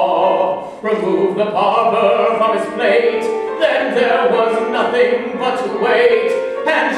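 Live musical-theatre singing with instrumental accompaniment, sung phrases continuing throughout.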